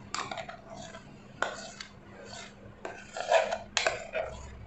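Spoon clinking and scraping against a mixer-grinder jar as thick ground rice-and-urad-dal batter is emptied into a glass bowl: several sharp clinks and scrapes, the loudest a little past three seconds in.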